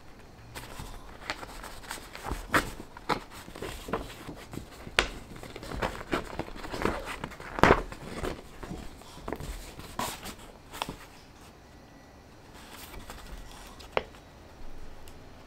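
Folded sheets of dotted journal paper rustling and crinkling as they are opened and handled, in many short crisp rustles and taps. The loudest comes about halfway through; from about ten seconds in there are fewer, with one sharp tick near the end.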